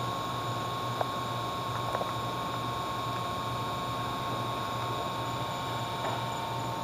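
A steady mechanical hum with a constant high tone over it, broken by a few faint clicks.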